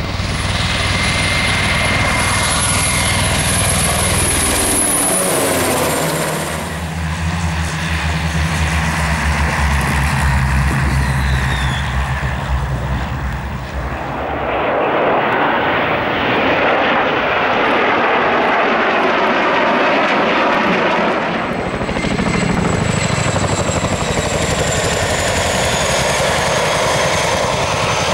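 Military helicopters and aircraft passing low one after another, among them a Eurocopter AS532 Cougar and a Boeing CH-47 Chinook. High turbine whines drop in pitch as they go by, with a deep pulsing rotor beat in the middle and broad engine noise as a group of aircraft takes off.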